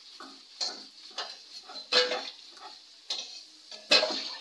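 A metal spatula scraping and clinking against a steel kadai as fried potato pieces are lifted out of the hot oil and dropped into a steel bowl, over the steady sizzle of the frying oil. There are about five strokes, the loudest about two seconds in and near the end.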